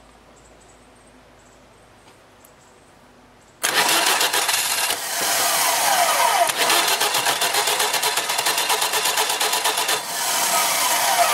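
Bosch electric starter motor cranking a 4A032 four-cylinder air-cooled military engine, cutting in suddenly about three and a half seconds in with a fast, even pulsing beat that dips briefly twice. A falling whine comes in near the middle and again near the end. The engine is being turned over for its first start after ten years standing.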